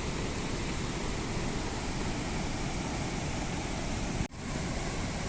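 Steady rush of falling water at a waterfall, an even noise throughout, briefly dropping out about four seconds in.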